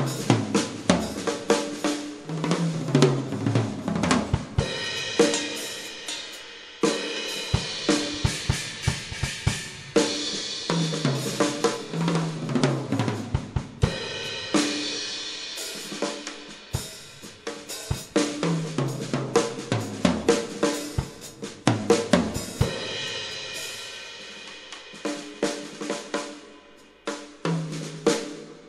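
Drum kit being played in a steady groove: snare and kick hits with hi-hat, cymbal crashes recurring every few seconds, and low drum strokes stepping down in pitch like tom fills.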